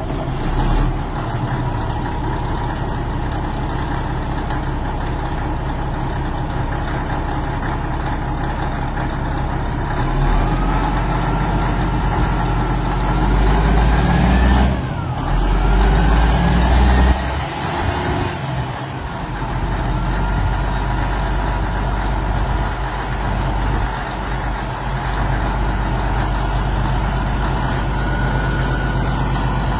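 Diesel engine of a Caterpillar wheel tractor-scraper running at idle, revved up twice near the middle with a rising whine each time, then dropping back to a steady idle.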